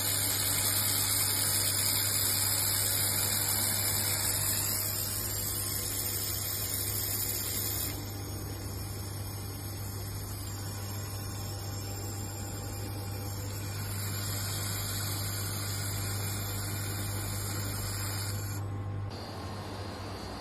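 Automatic fiber laser welding machine running: a steady low hum under a wide high hiss. The hiss changes about eight seconds in and drops shortly before the end.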